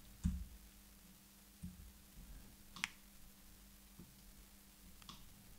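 Faint clicks of a computer keyboard and mouse: a soft low thump just after the start, then a few sharp, separate clicks, the clearest about halfway through, over a faint steady hum.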